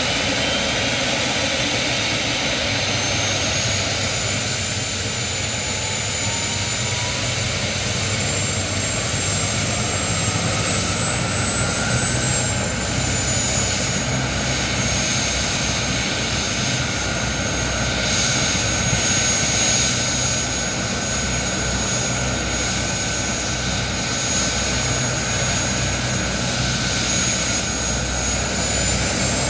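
Medical helicopter's turbine engines running on the ground: a steady rushing noise with a high whine that climbs in pitch over the first dozen seconds, then holds steady.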